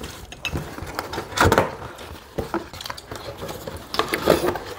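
Scattered clinks and knocks of cutlery and dishes handled at a meal table, loudest about a second and a half in and again near the end.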